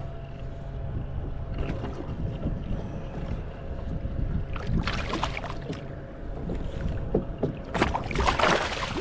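Water sloshing against a kayak hull with wind on the microphone, and two short louder splashing noises about five and eight seconds in.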